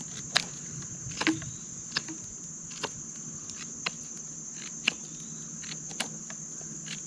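Steady high-pitched insect chorus, cricket-like, with sharp clicks or snaps about once a second standing out above it.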